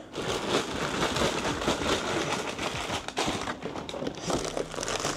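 Plastic bags full of LEGO pieces crinkling and rustling as they come out of the set's cardboard box onto a table, with one sharper knock about three seconds in.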